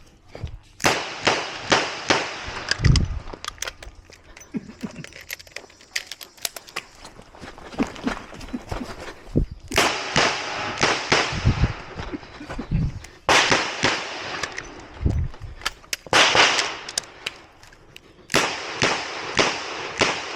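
Ruger GP100 Match Champion revolver firing .38 Special rounds: sharp shots in quick strings of several, each shot ringing out briefly, with gaps of a few seconds between strings.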